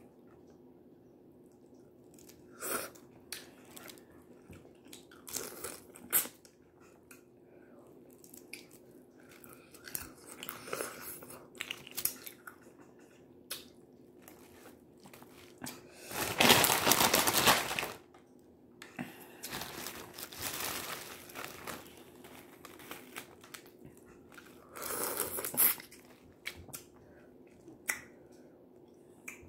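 Boiled crawfish being peeled and eaten close to the microphone: shells cracking and tearing, and chewing, in short scattered bursts. A louder rush of noise lasting about two seconds comes about halfway, with shorter ones later.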